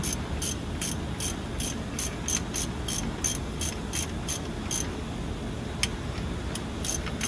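Hand ratchet wrench clicking in even strokes, about three clicks a second, pausing for a second or so past the middle before it clicks again.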